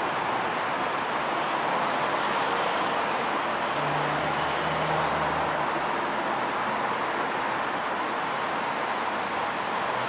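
Steady background noise, an even hiss with no bird calls, like distant road traffic. A low hum comes in for about two seconds near the middle.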